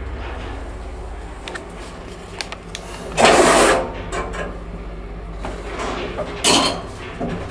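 1977 ZREMB traction elevator car travelling down and coming to a floor, with a steady low hum from the drive. A loud rattling burst of about half a second comes about three seconds in, and a shorter one about six and a half seconds in.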